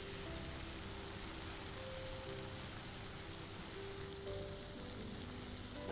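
Onion-tomato masala frying in oil in a pan with a steady soft sizzle over a lowered flame, as yogurt is added and stirred in. Soft background music with a few held notes plays underneath.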